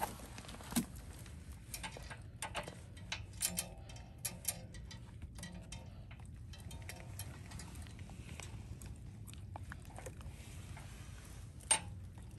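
Light scattered clicks and taps of a hand working the adjusting nut and linkage on a manual pallet jack's hydraulic pump head, with one sharper click near the end.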